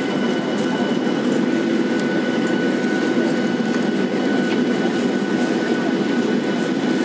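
Boeing 737-700's CFM56-7B turbofan running at low taxi power, heard inside the cabin over the wing: a steady rumble with a thin, constant high whine above it.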